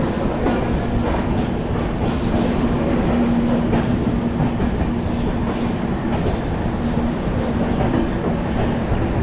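Shatabdi Express passenger train rolling into a station: a steady rumble with the clickety-clack of wheels over rail joints and a steady hum underneath.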